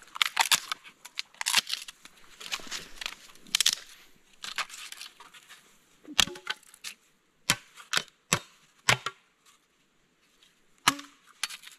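Firewood being handled and broken up: a dense rustle and crackle of dry branches, then from about six seconds in a string of separate sharp cracks and knocks.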